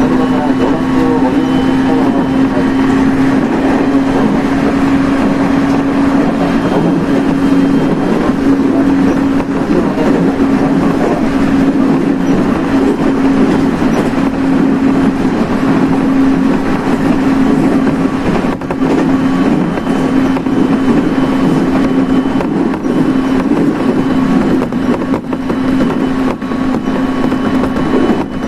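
Inside a passenger car of an electric train running at a steady speed: constant running noise with a steady low hum on top.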